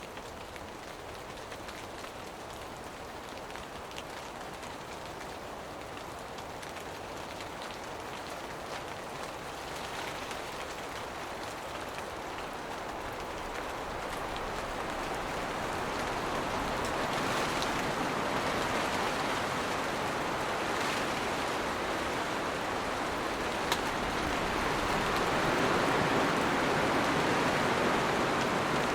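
Steady rain shower falling, a dense even hiss of drops that grows gradually louder, with a few sharper single drop hits.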